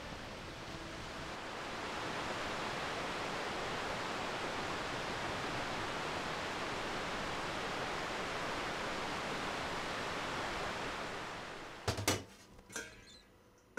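A steady rushing noise swells about two seconds in and fades away near the end. It gives way to a few sharp clinks and knocks of pots and kitchenware.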